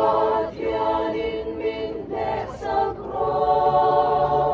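Mizo church choir singing unaccompanied, in long held chords. The phrases break off briefly twice, and a long chord is held near the end.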